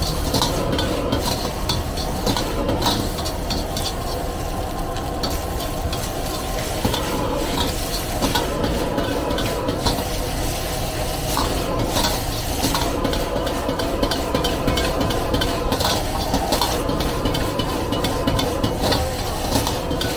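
A metal ladle scraping and clanking against a wok during fast stir-frying, with many short knocks, over food sizzling and the steady roar of a gas wok burner.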